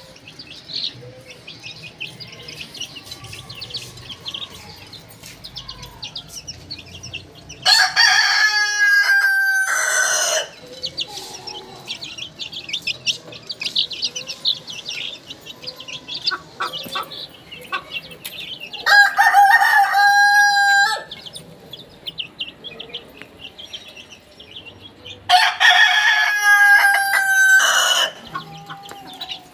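Roosters crowing three times, each crow lasting two to two and a half seconds, about eight, nineteen and twenty-six seconds in. Between the crows, chicks peep steadily in high chirps.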